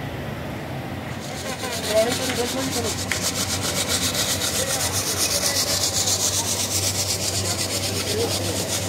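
Rhythmic rasping scrape in a metal workshop, several strokes a second, starting about a second in, over a low steady hum, with faint voices.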